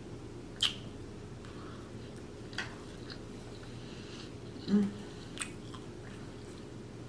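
Close-miked chewing of food, with a few sharp wet mouth clicks and a brief hummed "mm" of enjoyment about two-thirds of the way through.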